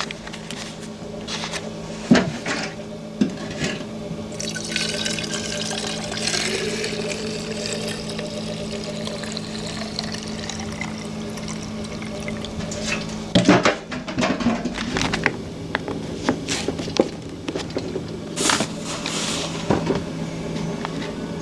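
Fuel being poured from a can into the empty fuel tank of a Stihl chainsaw, a steady pour lasting several seconds in the middle, with sharp knocks of the can and tank cap before and after.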